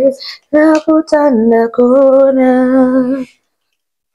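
A woman singing a few wordless held notes in short phrases, breaking off about three seconds in.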